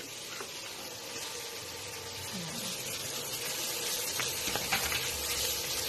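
Minced garlic and ginger sizzling in melted butter in a steel pan, a steady frying hiss that grows a little louder.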